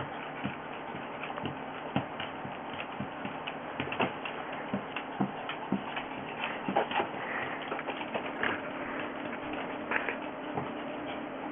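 A dog's claws clicking and tapping irregularly on a hardwood floor as it moves about playing with a stuffed toy, over a faint steady hum.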